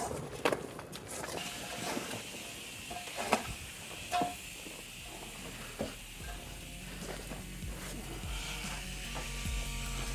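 Scattered scrapes and knocks of shovels working soil during backfilling, with background music fading in about six seconds in.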